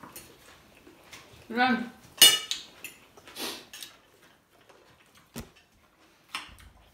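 Scattered clinks and clatters of cutlery and plates being handled at a meal table, the loudest clink a little after two seconds in. A short vocal sound comes just before it.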